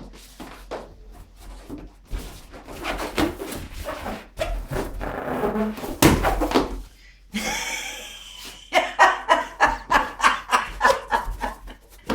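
Rubber balloons being gathered up and handled: rubbing and squeaking, with a loud thump about six seconds in and quick rubbing strokes, about four a second, near the end.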